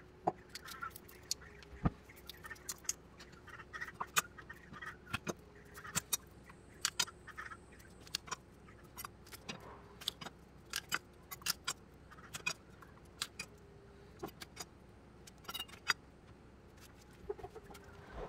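Garlic cloves being broken apart and peeled by hand on a wooden cutting board: irregular small clicks, taps and crackles of papery skin, a couple every second, over a faint steady hum.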